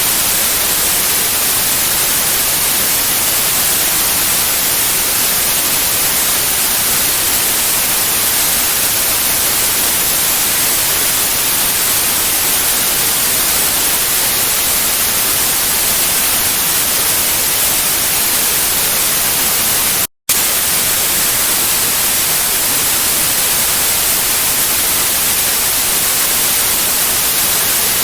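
Steady white-noise hiss, even and bright, heaviest in the high frequencies. About twenty seconds in it cuts out for a split second and resumes unchanged.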